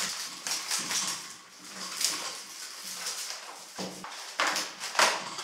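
Plastic packaging rustling and crinkling as it is torn open by hand, with several sharper crackles, the loudest near the end.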